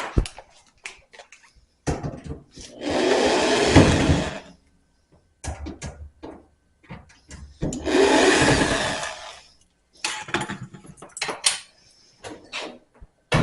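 Cordless drill driving a screw in two runs of about a second and a half each, the motor pitch shifting as it spins, with clicks and knocks of handling metal panel parts between.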